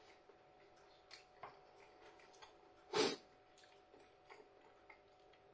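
Faint mouth sounds of a man chewing a mouthful of battered chicken and rice: small scattered clicks, with one short louder mouth sound about three seconds in.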